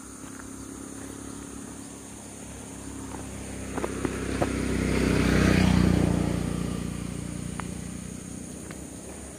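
A motor vehicle passes by: its engine builds to a peak about six seconds in and fades away. A few sharp clicks come about four seconds in, under a steady high insect drone.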